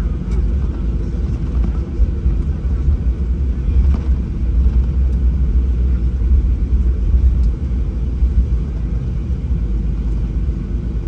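Steady low rumble in the cabin of a Boeing 737-800 taxiing after landing, its CFM56-7B engines at idle.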